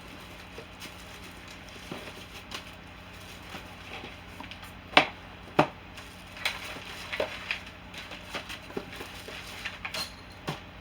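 Items being lifted out of a giveaway package of toiletries and set down: scattered light clicks and rustles, with two sharper knocks about five seconds in.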